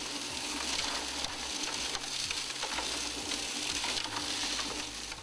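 Concrete mixer running with water, gritty stone and trousers tumbling in its drum: a steady churning, sloshing hiss over a low motor hum, with scattered knocks.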